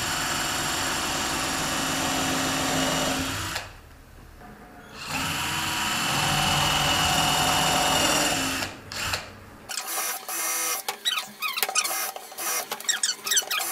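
Brushless 48 V cordless drill-driver running under load in a small pine block: a steady run of about three and a half seconds, a short pause, then a second run of about three seconds. Near the end come irregular clicks and squeaks.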